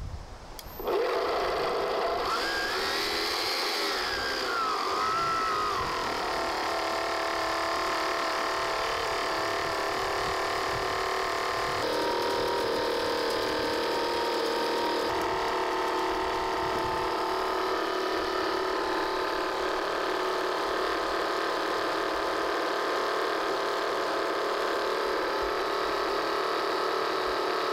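Two 775 DC motors driving a 3D-printed dual screw pump through plastic gears, running steadily with a whine and gear noise once started about a second in. One pitch rises and falls a few seconds in before the sound settles.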